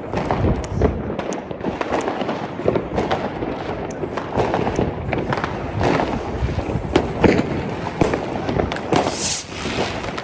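New Year's Eve fireworks and firecrackers going off, a dense unbroken barrage of bangs and crackling.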